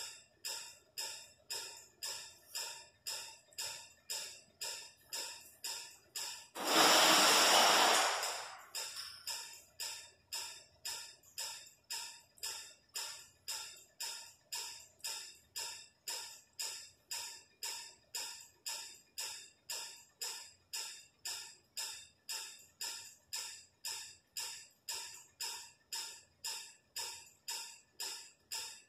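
A steady ticking beat, about two ticks a second, with one loud burst of hiss about seven seconds in that fades out over a second or so.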